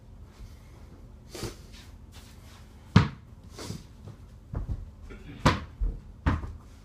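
Small ball striking an over-the-door mini basketball hoop and the door, and bouncing on the floor: a string of sharp knocks and thuds, the loudest about three seconds in.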